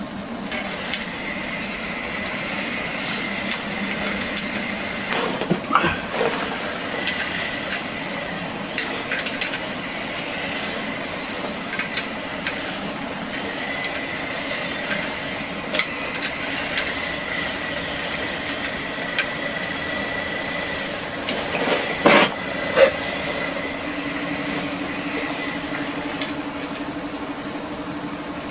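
Scattered small clinks and knocks of metal tools and fittings being handled while a mixer tap is installed, over a steady hiss. The loudest knocks come about 22 seconds in.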